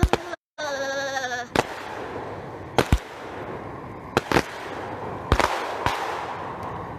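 Backyard consumer fireworks going off: a string of about eight sharp bangs spread over several seconds, some coming in quick pairs.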